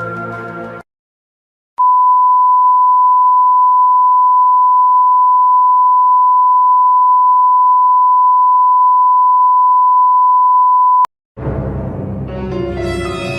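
A single long, steady electronic beep held at one pitch for about nine seconds, then cut off abruptly, the standard censor bleep sound effect. Music ends just before it, and another music clip starts near the end.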